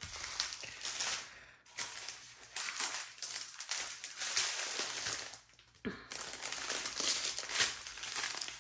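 Small clear plastic bags of diamond-painting drills crinkling as they are handled and sorted, with brief pauses about a second and a half in and again around five and a half seconds.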